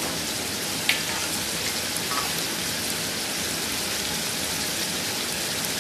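Chicken pieces and masala frying in a cooking pot, a steady sizzle, with one sharp click about a second in.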